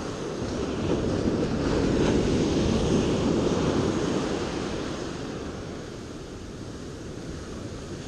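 Ocean surf breaking and washing up the beach, with wind buffeting the microphone. The wash swells about a second in and ebbs after the middle.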